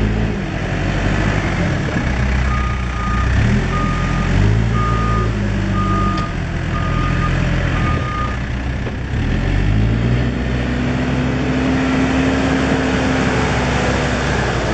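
2005 Case 580 Super M backhoe loader's diesel engine running, its revs dipping and rising, while its reversing alarm sounds six beeps about one a second. Near the end the engine pulls up to a higher, steady speed.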